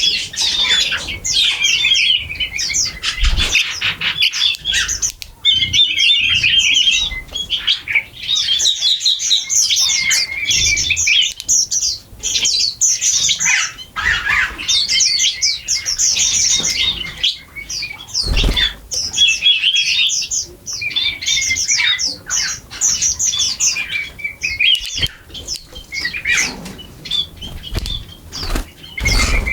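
A flock of small birds chirping constantly in rapid, overlapping high-pitched chirps while feeding. A few dull thumps come through, about three seconds in, midway and near the end.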